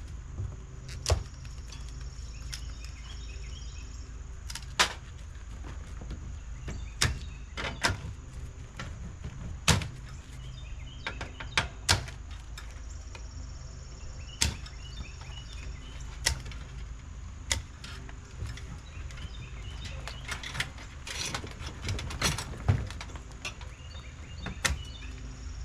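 Wire cutters snipping through the wiring of an old dishwasher being stripped for scrap: sharp snips at irregular intervals, about one every one to two seconds.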